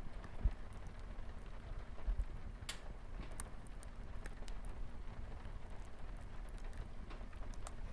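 Wood fire crackling in a fireplace, with scattered sharp pops and a couple of soft low thumps, over a steady hiss of light rain on a window.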